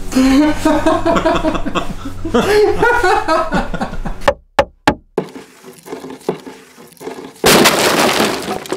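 A man laughing for about four seconds, then a few sharp clicks and, near the end, a loud noisy burst of a logo sound effect lasting about a second.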